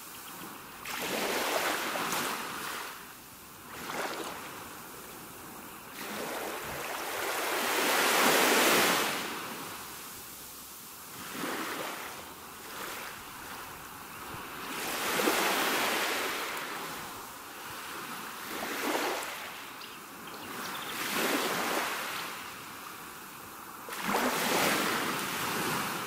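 Sea waves breaking and washing up on the shore, the hiss of surf swelling and fading every few seconds, with the biggest waves breaking about a third of the way in, past the middle, and near the end.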